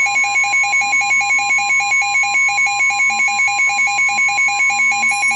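NOAA Weather Radio warning alarm tone, one steady high tone, with a rapid alert beeping from an EAS decoder pulsing over it about six times a second. The tone signals that a warning message is about to be broadcast.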